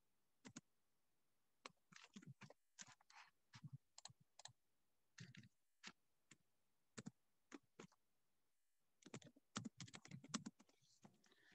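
Faint computer keyboard typing: single key clicks spaced out with pauses, then a quicker run of keystrokes about nine seconds in.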